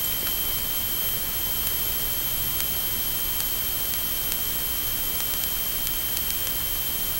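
Steady electronic hiss with two thin, high, steady whines and a few faint ticks: the noise of an FPV camera's analog video and audio link.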